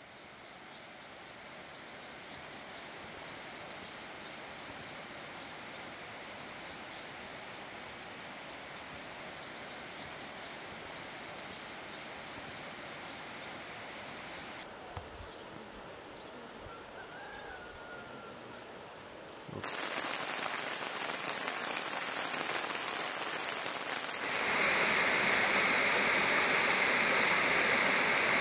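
Forest ambience with insects making a steady high trill, then after a cut a brief chirp, then rushing water of a rocky stream cascading over stones, growing louder in two steps toward the end.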